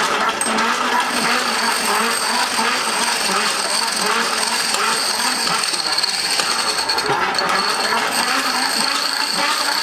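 Pedal-powered grinder being pedalled, its drive mechanism running with a steady mechanical clatter and a high steady whine while the old grinding stone spins as a flywheel.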